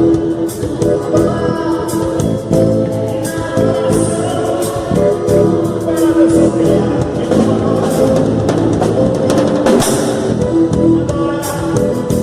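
Gospel band playing a worship song: drum kit keeping a steady beat with cymbals, electric bass and guitar, with a singing voice over them.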